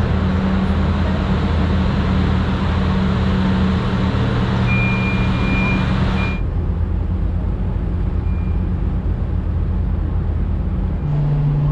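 Steady low engine drone with a heavy rushing noise over it. A high electronic beep sounds three times just past the middle. Soon after, the rushing noise drops away abruptly, leaving the low drone.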